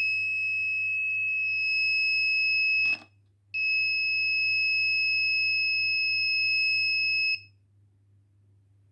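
Fire alarm project's buzzer sounding a steady, high-pitched tone, which signals that the flame sensor is detecting a flame. It sounds for about three seconds and breaks off with a brief knock, then sounds again for about four seconds and stops.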